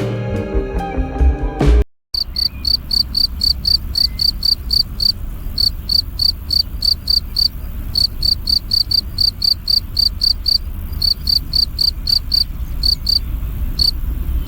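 Soft music stops about two seconds in after a brief cut, then a cricket chirps steadily at about three high-pitched chirps a second, with a few short pauses, over a low rumble.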